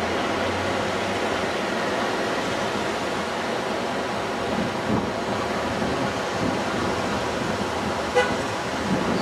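Steady noise inside an elevated New York subway car on the 4 line, with a very short, high tone about eight seconds in.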